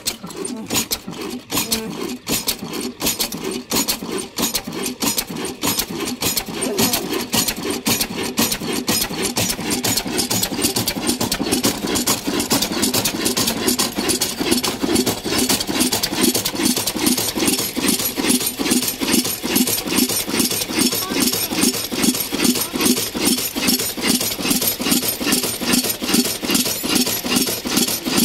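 Old 22 hp stationary diesel engine running with a regular thudding exhaust beat. The beat settles into a steady, even rhythm of about three beats a second and grows stronger partway through.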